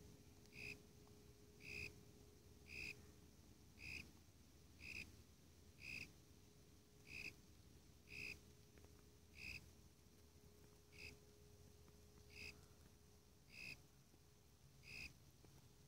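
A male cricket, tentatively identified as the Warilla imposter (Eurygryllodes warrilla), calls by rubbing its raised wings together. It gives short, high chirps about one a second, spacing out slightly toward the end.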